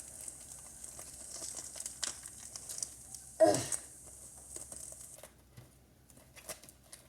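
Plastic DVD packaging being crinkled and torn open, a fine crackling that fades after about five seconds, with one louder, brief noise about three and a half seconds in.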